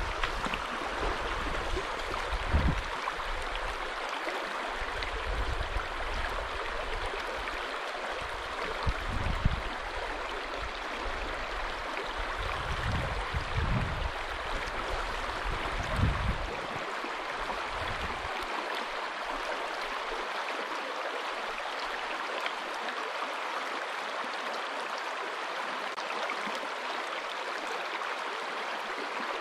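Shallow river running low over a stony bed, a steady rushing and gurgling of water. Irregular low rumbles sound under it in the first half and stop after about 17 seconds.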